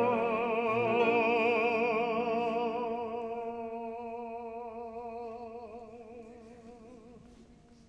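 A classically trained singer holds one long operatic note with a wide, even vibrato, slowly fading away, over a steady sustained piano note.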